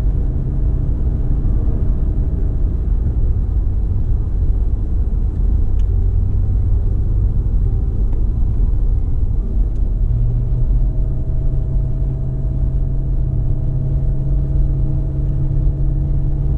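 Car driving on the road: a steady engine and tyre rumble. The engine note steps up in pitch about ten seconds in.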